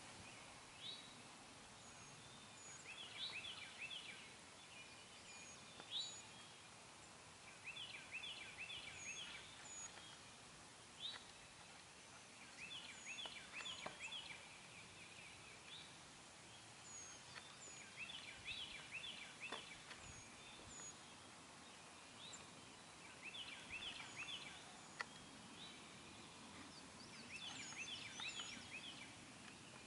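Wild turkey gobbler gobbling faintly and repeatedly, about six gobbles roughly five seconds apart, each a quick rattling run of notes. Faint high bird chirps come in between.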